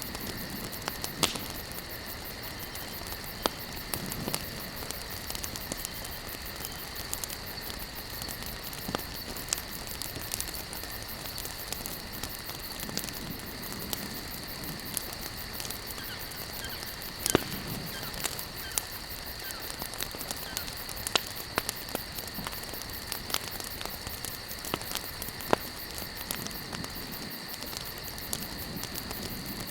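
Wood campfire burning, crackling with irregular sharp pops and snaps, some louder than others, over soft low rushes of flame. A steady high-pitched drone runs underneath.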